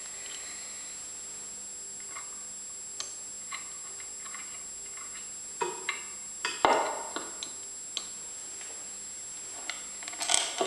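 Light metal clicks and taps as a small metal cover plate and its bolts are handled and fitted against a lathe's housing, with a cluster of louder knocks and scrapes about six seconds in and again near the end.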